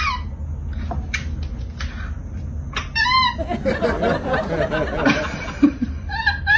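Monkey squeals: short, high-pitched, arching calls, one at the start, another about three seconds in and two more near the end. A woman laughs softly between them.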